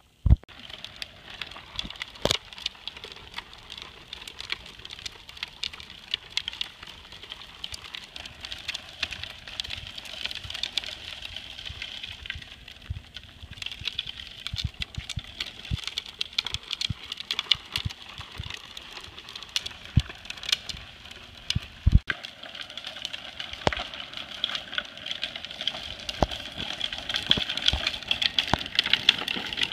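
Hard plastic wheels of Big Wheel tricycles rolling over asphalt: a continuous rattling grind full of small clicks and knocks, a little louder near the end.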